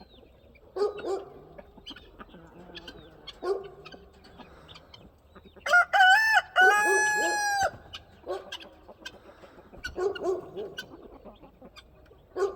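A flock of chickens clucking in short bursts, with a rooster crowing once, loud and drawn out, about six seconds in.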